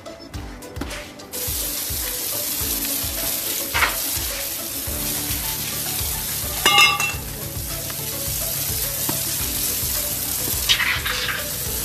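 Water from a garden hose hissing and splashing onto a tiled floor, with a few brief knocks and clatters. Music plays faintly underneath.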